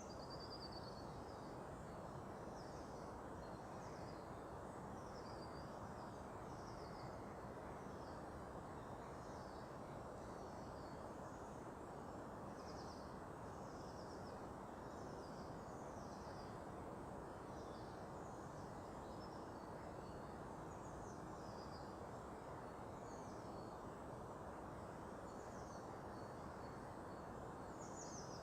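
Small bird giving short, high calls over and over, roughly once a second, over a steady low background rumble.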